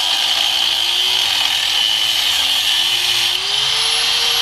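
Handheld cut-off wheel grinding through the steel lower shock mount bracket on a Jeep Wrangler JK axle: a steady motor whine over the hiss of the cut. The whine dips and wavers as the wheel bites, then rises about three seconds in as the wheel comes off the metal and spins up.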